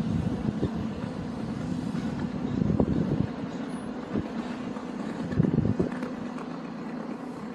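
City street traffic: cars and other vehicles passing on the road beside the sidewalk, with a couple of louder swells as vehicles go by.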